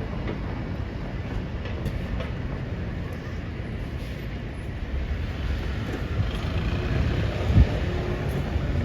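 A train running with a steady low rumble that grows a little louder, and a single knock about seven and a half seconds in.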